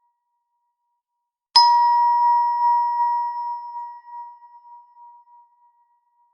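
Doorbell chime sound effect: a single struck bell tone, sudden, then ringing and slowly fading out over about four seconds. It starts about a second and a half in.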